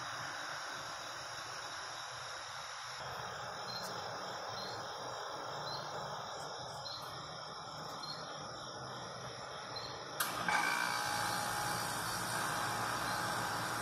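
Crickets chirping faintly over a steady outdoor hum. About ten seconds in, a sudden, louder hissing noise sets in as a garbage truck approaches.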